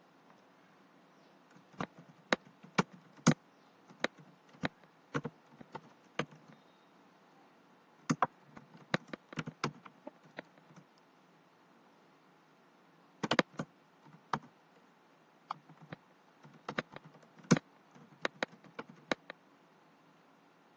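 Typing on a computer keyboard: separate keystroke clicks in several short runs with pauses between.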